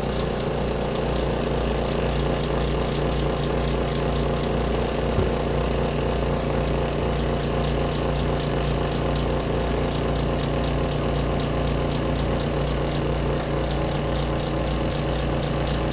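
Spin dryer of a compact twin-tub washer spinning a jacket, a steady motor hum over a low, evenly pulsing rumble. The load has gone a little off balance.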